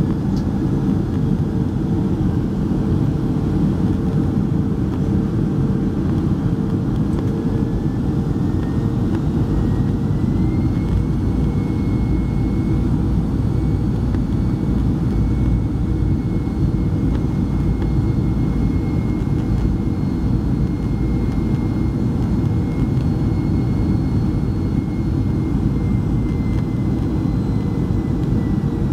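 Boeing 737-300 cabin noise heard beside the engine on approach: a steady roar of airflow and jet engine with a high engine whine that rises in pitch about ten seconds in and then holds.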